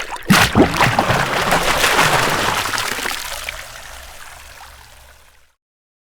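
A rush of water splashing and gurgling. It starts suddenly with a couple of sharp splashes, peaks about two seconds in, then dies away and stops about five and a half seconds in.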